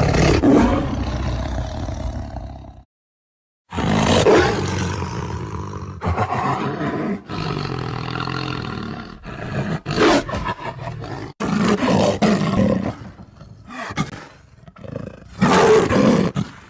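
Tiger roaring and growling: a long roar, a moment of silence about three seconds in, then another long roar followed by several shorter roars and growls.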